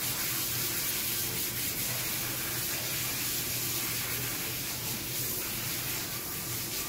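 Water hissing steadily from a handheld hose spray nozzle as a soapy dog is rinsed in a tiled wash tub.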